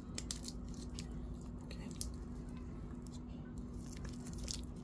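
Scattered crinkles and small clicks from a stainless steel watch bracelet being handled in its clear protective plastic film.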